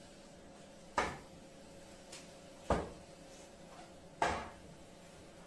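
Three knocks of tall platform-heel boots stepping on a tiled floor, about a second and a half apart, each dying away quickly.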